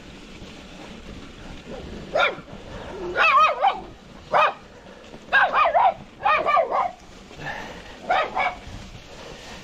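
Dog barking: a run of short, sharp barks and yelps, some in quick pairs, from about two seconds in until near the end, over a steady rush of wind and riding noise.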